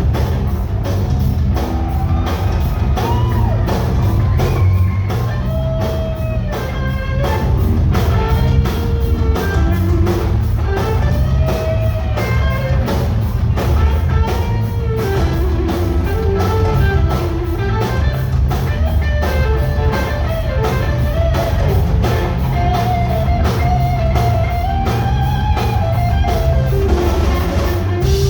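Live rock band playing, with an electric guitar lead bending and sliding between notes over steady drums and bass.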